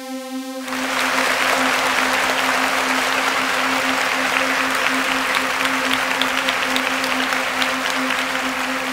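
A held musical tone stops under a second in, and a dense clapping sound like applause takes over, running over a steady low drone tone that stays underneath.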